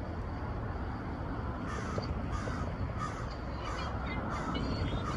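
A crow cawing repeatedly, a string of short harsh calls starting about a second and a half in, over steady low background rumble.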